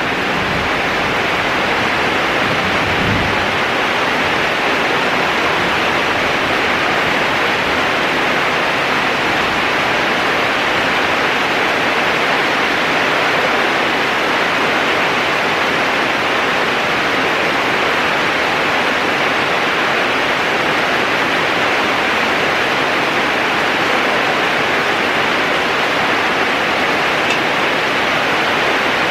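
Heavy rain pouring steadily, a constant loud hiss, with the low rumble of thunder dying away in the first few seconds.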